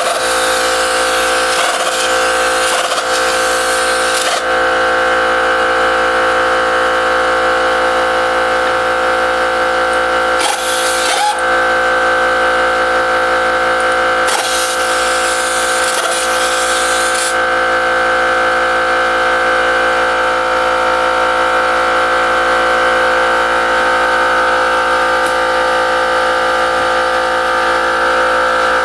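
A motor runs with a steady drone throughout, and a power tool adds harsher, hissing bursts three times: for the first few seconds, briefly about ten seconds in, and for about three seconds from fourteen seconds in.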